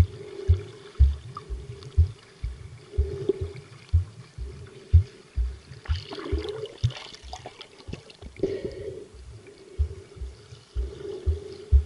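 Muffled underwater water noise from a camera just below the sea surface, with a stretch of splashing and bubbling from about six to nine seconds in, over low thumps about twice a second.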